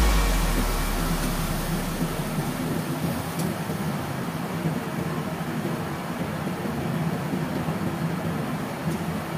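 Steady roar of a commercial wok range with its tap water running, while the end of a deep low rumble fades out over the first two seconds or so.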